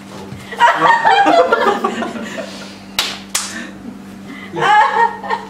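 Group laughter and excited wordless voices, with two sharp slaps about three seconds in, a third of a second apart.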